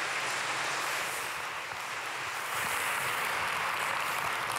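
Audience applauding steadily, a dense even clapping without voices.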